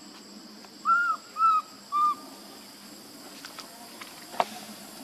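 A young macaque gives three short coo calls in quick succession, each rising then falling in pitch, over a steady high insect buzz.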